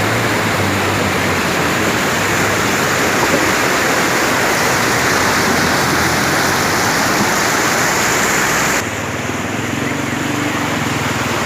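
Loud steady rushing of a waterfall. About nine seconds in, the sound changes abruptly: the rush becomes softer and duller, with a low hum underneath.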